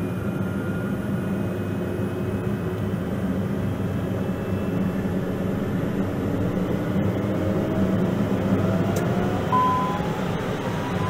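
Pilatus PC-12NG's Pratt & Whitney PT6A turboprop engine spooling up during its start after fuel is introduced: a steady drone with a whine that rises in pitch from about six seconds in. A short beep sounds near the end.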